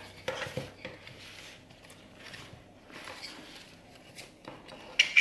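Handling noise from a nylon chest-mount harness and its plastic protective film: soft rustles and small plastic clicks. Near the end comes one sharp click as the plastic side-release buckle snaps together.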